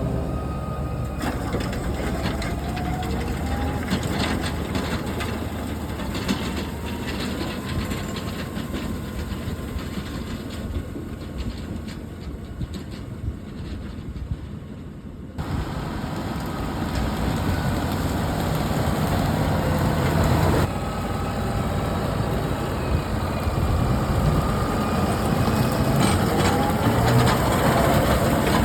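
Fendt 828 tractor running as it pulls a He-Va top cutter crimping roller over a turnip cover crop. The engine note slowly rises and falls, and the sound shifts abruptly a few times.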